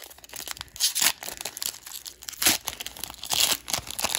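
Foil trading-card pack wrapper crinkling and tearing as it is pulled open by hand, in an uneven run of crackling bursts, loudest about a second in, in the middle and near the end.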